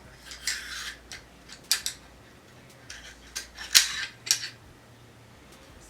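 Metal parts of an RF-15 AR-style rifle being handled during field-stripping: a short scrape, then several sharp metallic clicks and clacks, the loudest near the middle.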